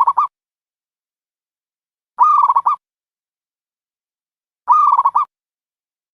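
A dove cooing: a short rolling coo, repeated three times about two and a half seconds apart.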